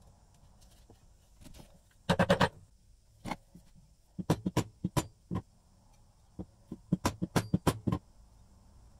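Irregular series of sharp knocks and taps, coming in quick clusters, the loudest a rapid flurry about two seconds in.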